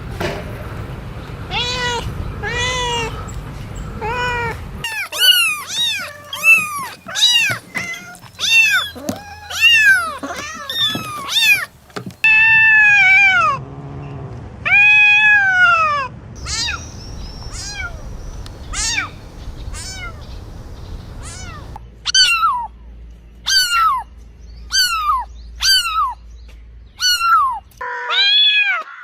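Cats meowing over and over, a string of short rising-and-falling meows with a few longer drawn-out ones in the middle, from several different recordings joined one after another.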